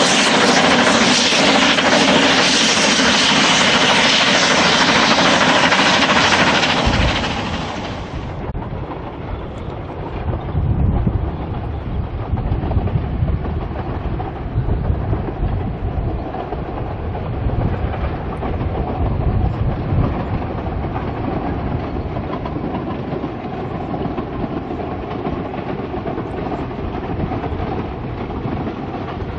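Two narrow-gauge steam locomotives double-heading a train, their exhaust and steam loud and hissing. About eight seconds in this gives way to the quieter Double Fairlie locomotive David Lloyd George working a train, with uneven low chuffs and wheels running on the rails.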